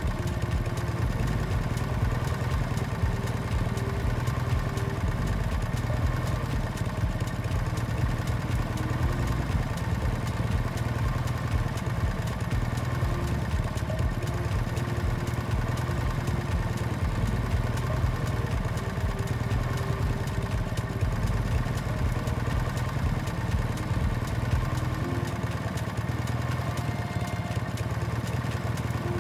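Motorbike engine running steadily, a continuous low rumble that doesn't stop or change much.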